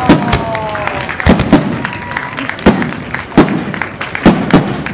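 Aerial firework shells bursting one after another, the bangs coming every half second to a second, often in close pairs. A falling whistle sounds during the first second.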